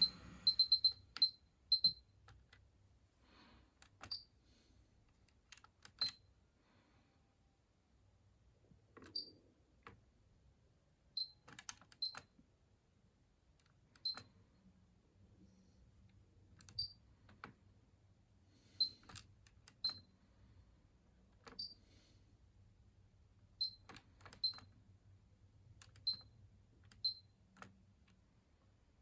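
Buttons on a Pioneer KEH-M9300RDS car stereo head unit pressed one at a time, each press a click with a short high beep, about every one to two seconds, over a faint low hum.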